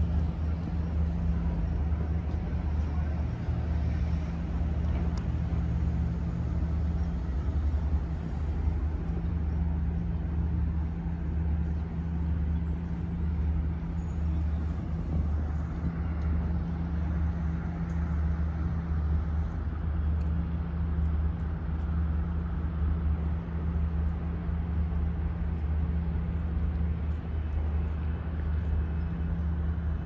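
Steady low machinery hum holding one constant pitch, with a faint general outdoor hiss over it.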